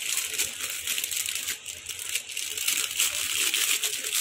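Thin plastic courier pouch crinkling and rustling as it is handled and opened, a steady dense crackle of plastic.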